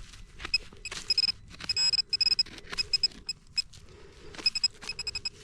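Metal detector beeping on a buried target: short beeps at one steady high pitch, coming in quick runs twice, with scraping clicks from digging between them.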